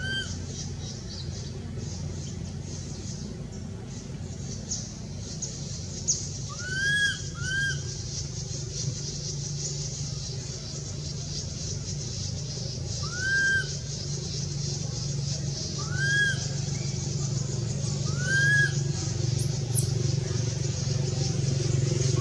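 Baby macaque giving short squeaky calls that rise and fall, about six spread through, two close together about seven seconds in. Underneath, a steady motor-vehicle engine hum grows louder near the end.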